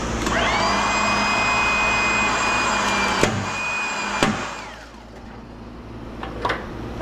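An electric motor on a shop machine spins up to a steady high whine and runs for about four seconds, then winds down with a falling pitch. Two sharp metallic knocks come near the three- and four-second marks.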